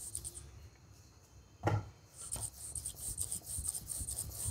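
Wooden rolling pin rolling out stiff wheat-flour dough on a wooden board: soft rubbing and scraping strokes, with one short knock about a second and a half in.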